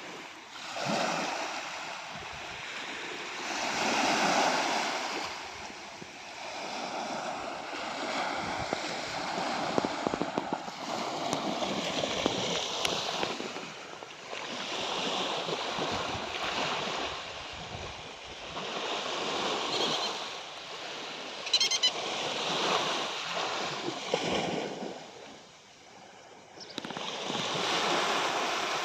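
Sea waves breaking and washing up on a shore, the surf swelling and falling back every few seconds.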